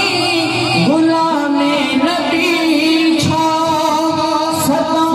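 A man singing a Sindhi naat solo into a microphone, with long held notes that waver in pitch.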